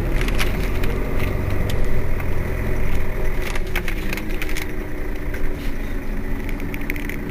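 Mercedes-Benz Citaro city bus engine idling while the bus stands still, a steady low rumble with scattered crackles and clicks over it. A steady hum joins about four seconds in.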